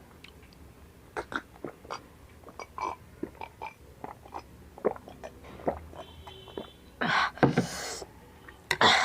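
Close-up chewing of spicy chatpate: a run of wet mouth clicks and smacks. Near the end come two loud, sharp breaths.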